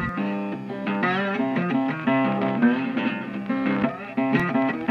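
Background music led by plucked guitar, with a steady run of picked notes.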